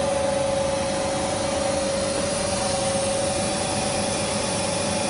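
Steady mechanical hum of running workshop machinery: an even hiss with a constant mid-pitched drone, unchanging throughout.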